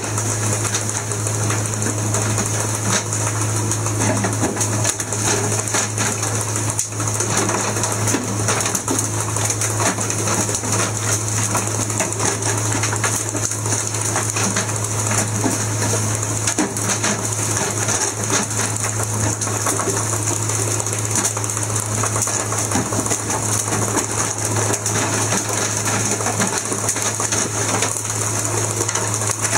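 Fishing boat's engine running steadily under way, a constant low hum with a fast mechanical rattle and hiss over it.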